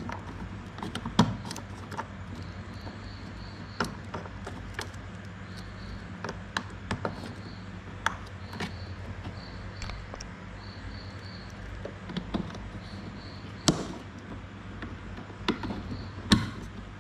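Scattered plastic clicks and knocks as wiring connectors are handled and clipped into the plastic housing of a car air-conditioning blower and evaporator unit, the sharpest click a few seconds before the end, over a steady low hum.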